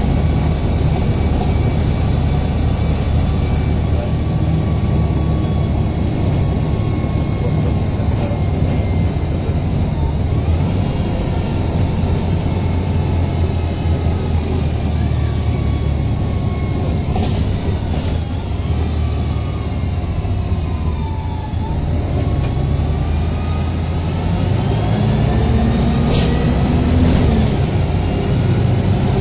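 Inside a MAN 18.220LF single-deck bus on the move: the diesel engine runs steadily under a constant low drone, while a drivetrain whine falls as the bus slows and rises again as it pulls away. A few brief sharp noises cut in, twice close together past the middle and once near the end.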